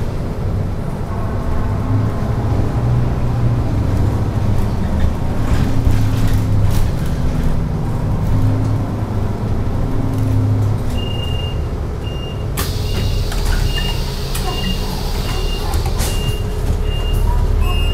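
City bus engine and drivetrain running under way, its pitch stepping up and down. Near the end, a repeated high warning beep starts, followed by a sustained pneumatic air hiss as the bus stops and its front door opens.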